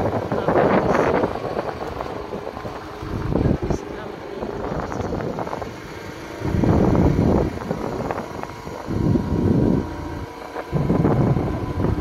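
Yamaha YBR 125 G motorcycle's single-cylinder engine running at riding speed on a dirt track, with wind noise on the microphone swelling into several loud gusts.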